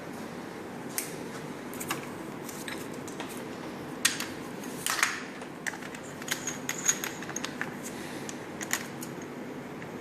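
Irregular sharp metallic clicks and clinks from the metal parts of a drill nibbler attachment being handled, loudest about four and five seconds in, over a steady low background hum.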